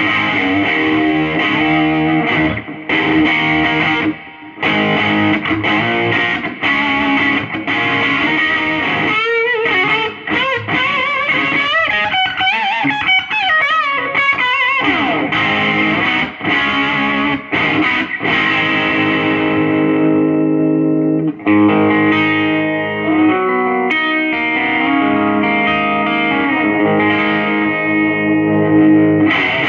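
1974 Gibson Les Paul Custom electric guitar with stock pickups played through a Crate Vintage Club 20 all-tube combo amp with spring-style reverb from a Diaz reverb unit, with some grit from the amp. Sustained notes and chords, with a stretch of bent, wavering lead notes in the middle and a fresh run of chords and notes about two-thirds of the way through.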